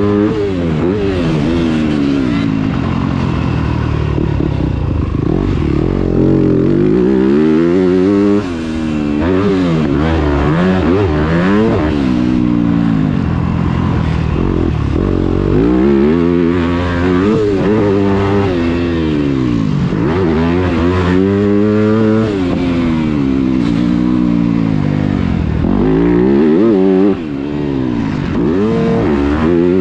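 A 2021 Yamaha YZ250F's 250 cc four-stroke single-cylinder engine under hard riding, its pitch climbing and falling over and over as the rider opens and closes the throttle through the gears. The throttle snaps shut briefly about a third of the way in and again near the end.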